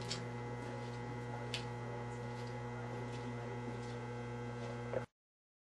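Steady electrical mains hum with a couple of faint clicks, cutting off abruptly to silence about five seconds in.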